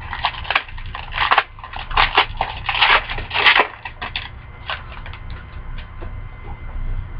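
Plastic card-pack wrapper crinkling as it is handled and torn open, dense crackles for about four seconds, then a few lighter ones.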